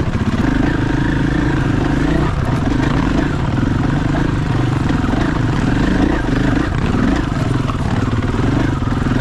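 Dual-sport dirt bike engine running hard on the trail, heard from the rider's seat. Its pitch rises and falls over and over as the throttle is worked.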